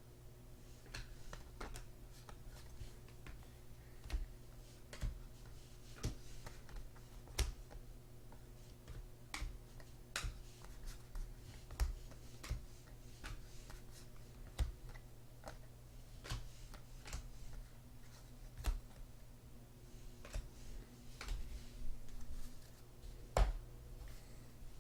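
Trading cards and packs being handled on a tabletop: irregular light clicks and taps, a couple of dozen scattered through the stretch, over a steady low electrical hum.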